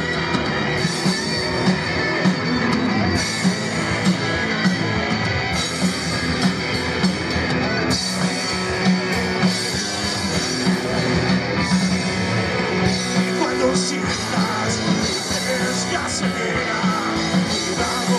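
Live rock band playing: two electric guitars over a drum kit with a steady beat.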